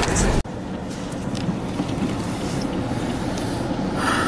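Inside a car's cabin, the steady low rumble of the vehicle driving on a snow-covered road cuts off abruptly about half a second in. It gives way to a quieter, steady engine and road hum.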